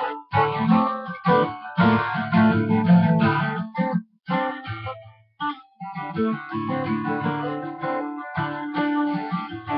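Guitar being played: plucked notes and chords, with a break of about a second around four seconds in before the playing resumes.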